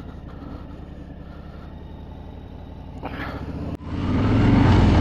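Harley-Davidson Street Bob's Milwaukee-Eight V-twin with a Miller exhaust, idling with a steady low beat. About four seconds in the throttle opens and the motorcycle pulls away, and the engine gets much louder as it accelerates.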